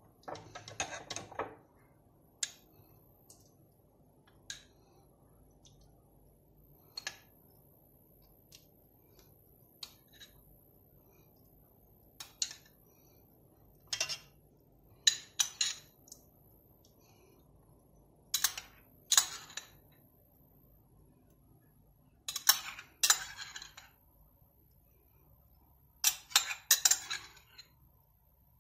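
A metal spoon clinking and scraping against a bowl and a round metal baking tray as tomato sauce is spooned over the dish. Irregular clinks come singly or in quick clusters, with short quiet gaps between.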